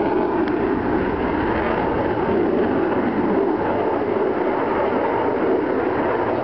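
Steady engine roar of an aircraft flying overhead, with some wind buffeting the microphone.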